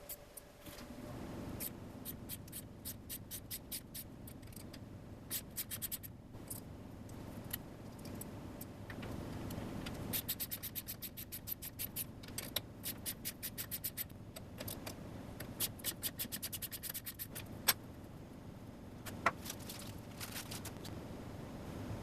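A 1/4 NPT pipe tap being turned by hand into holes in a UHMW plastic block: rough scraping as the tap cuts threads, broken by runs of quick sharp ticks.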